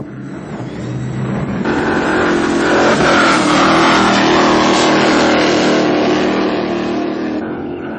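Brushless-powered RC offshore powerboat running fast on the water, its electric motor whining over the rush of water at the hull. It gets louder over the first few seconds, then fades, as it passes by.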